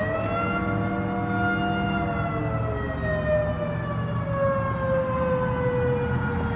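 Electromechanical outdoor warning siren sounding its noon blast, a chord of several tones. It holds near top pitch for about a second, then falls slowly in pitch as it winds down.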